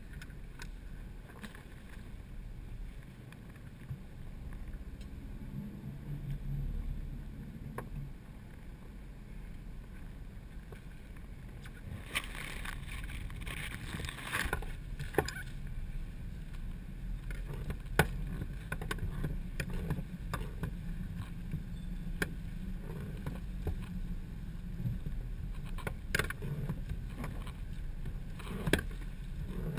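Boat sitting at a pier: a steady low rumble with scattered light knocks against the hull and fittings, and a few seconds of rushing, scraping noise about twelve seconds in.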